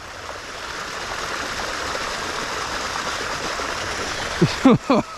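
Shallow creek water running, a steady rushing hiss that grows a little louder over the first two seconds.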